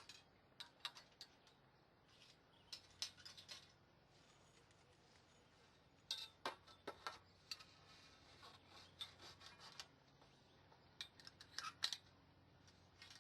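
Faint metal clicks and clinks of frame tent poles being slotted into their fittings, in small clusters every few seconds.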